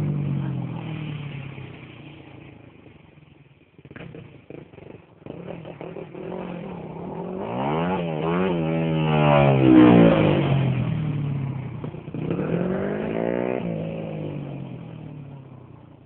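Dirt bike engine revving up and down through its gears as the bike rides off and fades, grows louder again about halfway through as it comes nearer, then fades into the distance near the end.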